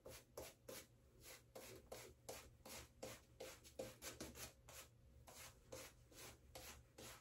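Boar-bristle shaving brush working wet shaving lather over the face and beard stubble: faint, quick rubbing strokes at about three a second.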